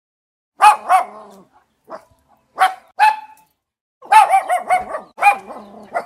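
Small dog barking in short, high-pitched barks: two pairs of barks, then a quick run of barks starting about four seconds in.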